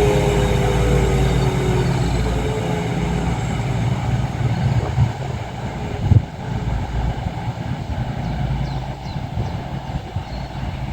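Class 222 Meridian diesel multiple unit at the platform, its underfloor diesel engines giving a steady low drone as it comes to a stand. A whine falls slowly in the first couple of seconds, and there is a single knock about six seconds in.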